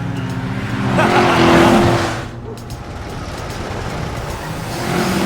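Cartoon truck sound effects: a steady engine drone, with a louder tyre screech from about one to two seconds in that cuts off suddenly, as the log truck swerves.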